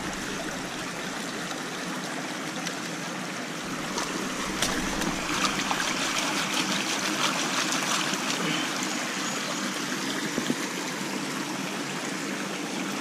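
Shallow creek water running over rocks, a steady trickle. From about four seconds in it grows a little louder with light splashing as an old cell phone is swished through the water to rinse it.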